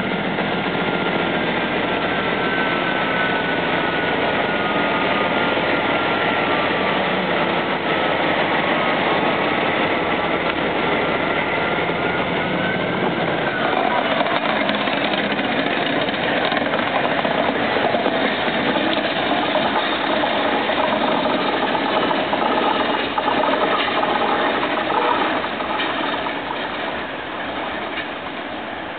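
Diesel shunting locomotive running along the track with its engine working. A high, wavering squeal sounds over roughly the first half, likely from the wheels of the train of car-carrier wagons. The engine then dominates, a little fainter near the end as the locomotive moves away.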